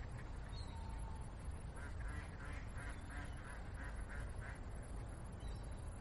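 Single-screw snack extruder running in a factory, a steady low machine hum. For a few seconds in the middle, a rhythmic high chirping about three times a second sits over it.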